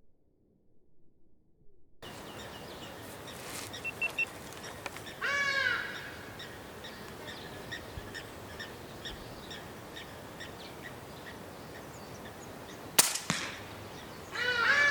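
Birds calling, then near the end a single sharp crack: a suppressed .22 Daystate Alpha Wolf PCP air rifle firing. More bird calls follow the shot.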